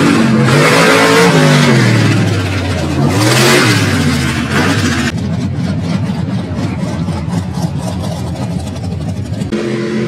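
Mud truck engine revving hard, its pitch rising and falling with the throttle. From about five seconds in it runs rougher and duller with a rapid pulsing, and near the end it settles into a steady note.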